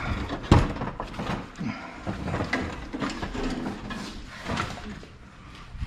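Knocks and metallic rattling as an old wooden ladder and a hanging rusty chain are handled and pulled down, with one loud knock about half a second in.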